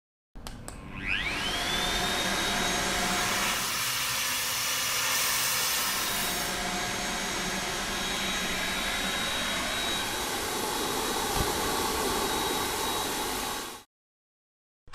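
Deerma DX1000 corded vacuum cleaner switched on, its motor whine rising quickly to a high steady pitch, then running steadily for about thirteen seconds before cutting off suddenly. A short click follows near the end.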